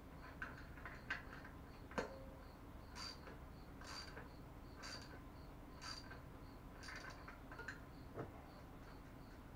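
A cricket chirping steadily, about three to four high chirps a second, with a few sharp knocks or clicks and short noisy strokes about once a second from work on the bike.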